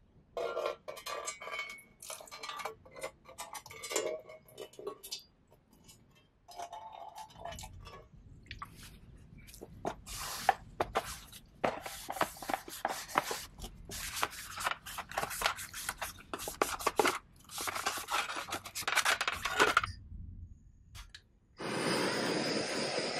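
Cloth rubbing and wiping the bare sandblasted tin box, with uneven scraping strokes and light knocks and clinks of the thin metal tin on the bench. Near the end a steady hiss starts.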